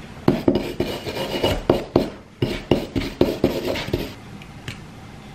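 Razor blade scraping old gasket material, melted onto the metal, off a snowmobile fuel pump body: a run of short, irregular scrapes that die away about four seconds in.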